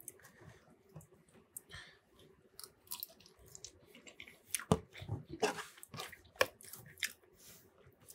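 Quiet chewing of a mouthful of Reuben poutine (fries, gravy, cheese, corned beef, pickles), with scattered short clicks that are loudest and most frequent in the middle.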